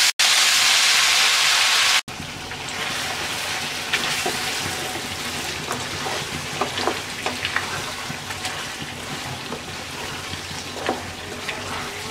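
Boiled beef and its masala sizzling in hot mustard oil in a non-stick kadai. The sizzle is loud for the first two seconds as the meat goes in. It then settles to a softer, steady sizzle with scattered pops and scrapes as the meat is stirred with a wooden spatula.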